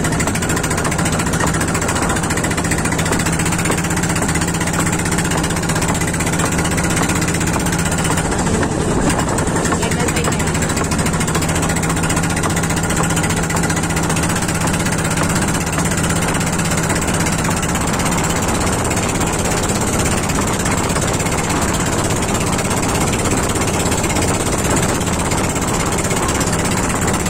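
Engine of a Philippine motorized outrigger boat (pump boat) running steadily under way. It is a loud, even engine noise that holds one speed and pitch throughout.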